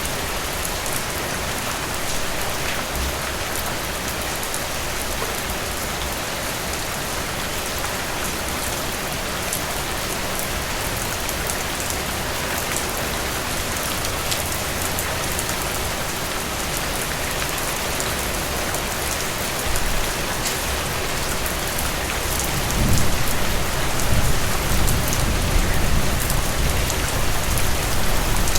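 Heavy rain falling steadily, an even hiss dotted with the ticks of single drops. A low rumble comes in during the last few seconds.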